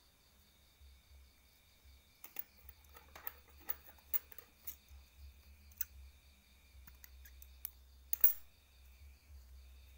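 Scattered small clicks and ticks from fingers handling fishing line and a sabiki rig's hooks, the loudest just after eight seconds in. Crickets chirr steadily in the background.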